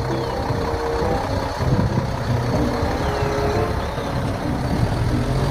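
Concrete mixer truck's diesel engine running steadily as the truck drives slowly, a low rumbling engine note.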